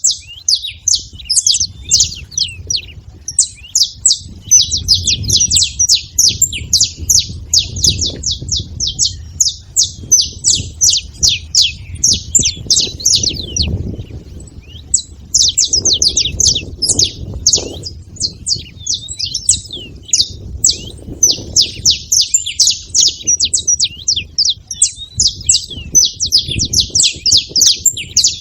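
Flock of saffron finches chirping and calling noisily together, a rapid stream of short high chirps with a brief lull about halfway through. A low rumble runs underneath.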